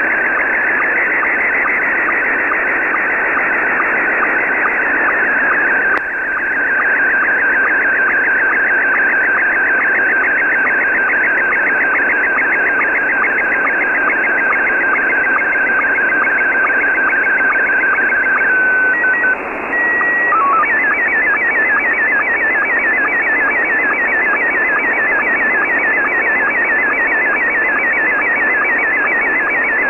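Slow-scan television (SSTV) picture signal from a pirate shortwave station, heard through an Icom IC-R9500 receiver in lower sideband. It is a weak, noisy signal: a warbling whistle over heavy static hiss, with a steady rhythm of short sync ticks as each picture line is sent. Past halfway the whistle holds one steady pitch as the picture ends, then a few short beeps of different pitches announce the next picture, and a fast repeating warble starts as that picture begins scanning.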